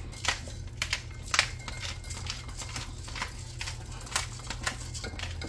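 Irregular sharp clicks and taps of a wire whisk knocking against a glass measuring cup while a liquid is whisked, along with a spice jar being shaken.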